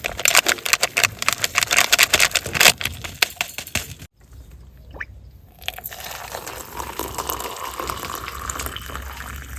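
Packet-soup making in a camp pot: for about four seconds, dense crinkling and crackling as the soup is put in, then after a brief break a steady gushing, liquid sound.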